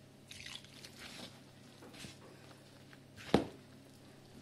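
Hands mixing and kneading moist flour dough with fenugreek leaves in a bowl: faint soft squishing and rustling, with one sharp knock a little over three seconds in.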